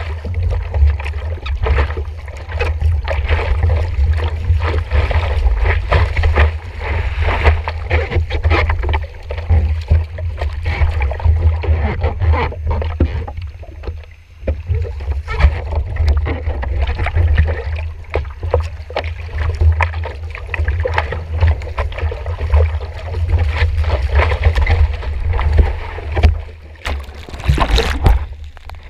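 Water splashing and sloshing around a surfboard as a surfer paddles it by hand, picked up by an action camera at water level, over a constant low rumble. Shortly before the end there is a louder rush of water as the camera goes into the water.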